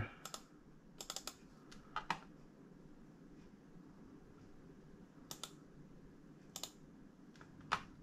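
Computer mouse buttons clicking: short sharp clicks, single and in quick pairs, every second or so, with a few together about a second in, a pair about five seconds in and the loudest one near the end.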